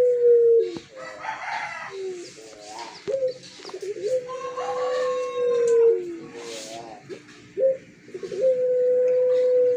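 Puter pelung, a Barbary dove bred for a long, drawn-out coo, calling: each coo is one steady note held about two seconds that drops away at the end, repeated about every four seconds. Shorter stepped calls and a brief rough call about a second in fall between them.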